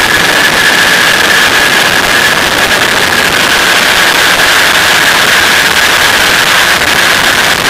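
Flexwing microlight trike in cruise flight: loud, steady engine-and-propeller noise mixed with rushing wind, with a constant high whine over it.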